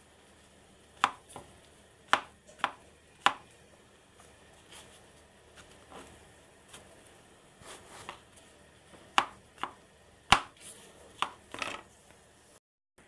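Chef's knife slicing brown mushrooms on a plastic cutting board: sharp, irregular taps of the blade striking the board, fainter through the middle stretch. The sound cuts out briefly near the end.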